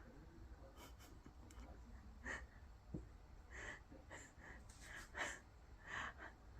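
Near silence: quiet room tone with a few faint, brief soft sounds scattered through it.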